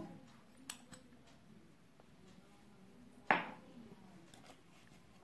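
One sharp knock a little over three seconds in, dying away within half a second, with a couple of faint clicks about a second in; otherwise quiet room tone.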